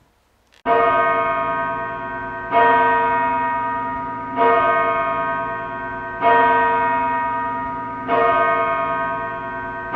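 A single church bell tolling, struck about every two seconds at the same pitch. Each stroke rings on into the next.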